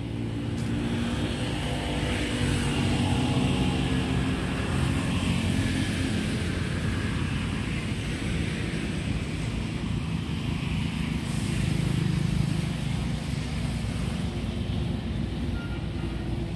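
Road traffic: the engine hum of vehicles passing on a nearby road, swelling about three seconds in and again near twelve seconds, over a steady low rumble.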